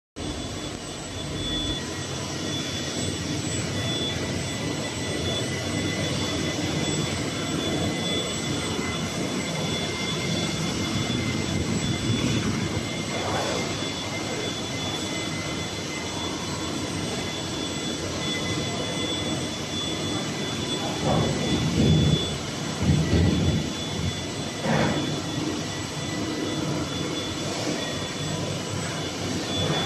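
Steady machinery noise of a running plastic sheet extrusion line: motors, fans and rollers, with several constant high-pitched whines over the din. A few louder low bumps come about two-thirds of the way through.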